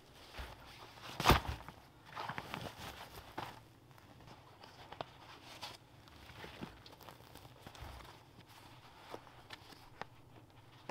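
Handling camping gear on frozen forest ground: a heavy thump about a second in, then rustling and scraping with small clicks as a rolled closed-cell foam sleeping mat is pulled free of a backpack's straps and its strap is undone.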